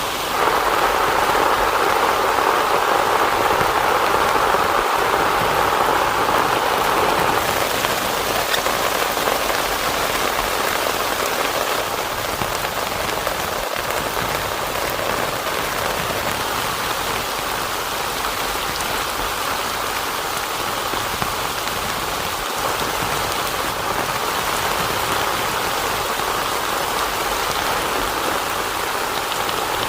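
Heavy rain falling steadily, a little louder for the first seven seconds or so.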